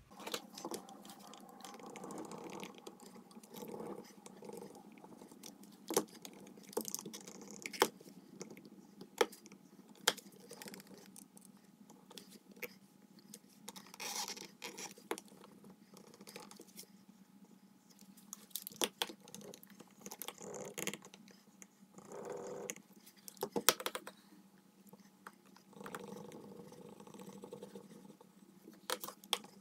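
Leather holster being formed around a 1911 pistol: the leather is pressed and rubbed with a bone folder, giving irregular rubbing and creaking with scattered sharp clicks and taps, over a faint steady hum.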